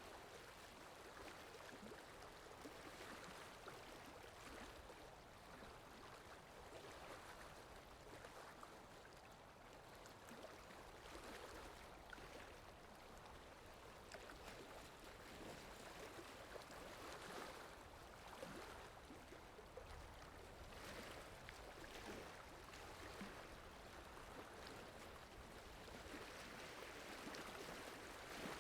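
Faint steady rain: an even hiss of falling water with scattered small drop ticks, swelling and easing gently.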